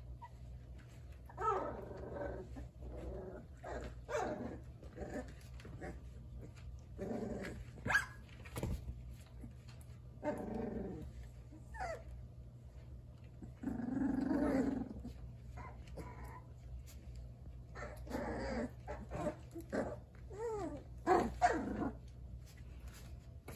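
Three-week-old puppies play-wrestling, giving small growls and yips in short bouts every few seconds.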